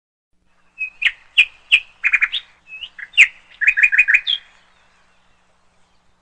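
A bird chirping: a string of short, sharp chirps lasting about three and a half seconds, some single and some in quick runs of four or five.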